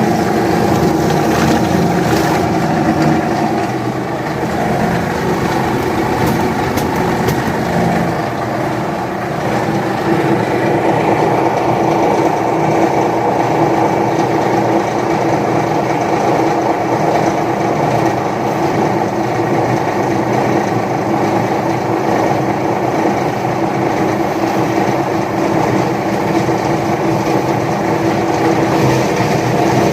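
Paper shredder running steadily: a loud motor hum with the cutters chewing through paper, its tone shifting a little about ten seconds in.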